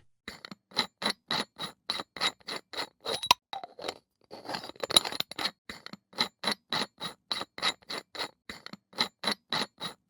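A rapid run of short metallic clinks, about three or four a second, with a brief pause a little past a third of the way through.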